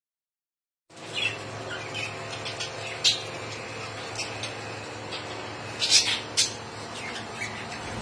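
A flock of budgerigars chirping and chattering: many short, high chirps, a few of them sharper and louder, over a low steady hum, starting about a second in.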